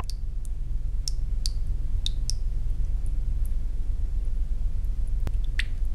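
Poly-resin tabletop fountain running: water drips and plinks into the basin in scattered single drops, over a steady low hum.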